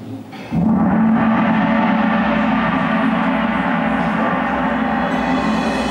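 A gong struck once about half a second in, then ringing on with a deep, shimmering tone that dies away only slowly.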